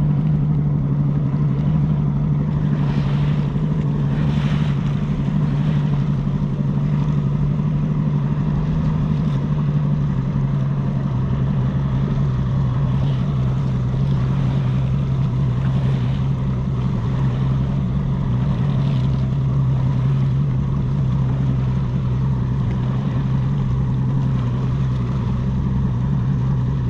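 Yamaha outboard motor on a bass boat running steadily at a low, even pitch as the boat cruises slowly, with water rushing along the hull.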